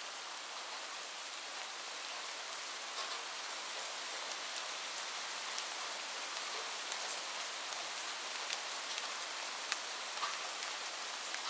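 Steady rain falling on a roof: a dense, even hiss with single drops ticking sharply here and there.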